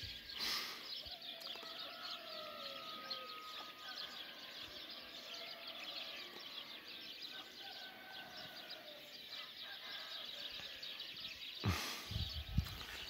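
Dawn chorus: many small songbirds chirping and singing densely and continuously, with faint rooster crowing in the distance.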